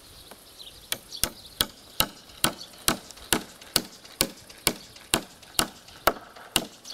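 Hammer driving a long nail into a hard birch log: a steady run of sharp blows about two a second, starting about a second in.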